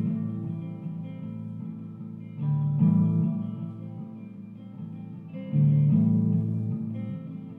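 Background music on guitar: chords struck about every three seconds, each left to ring and fade.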